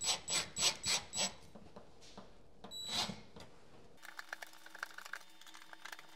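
Cordless drill driving a switch mounting screw through plastic spacers into the box in quick short bursts, about three a second, over the first second or so. Later only faint small clicks of handling at the switch.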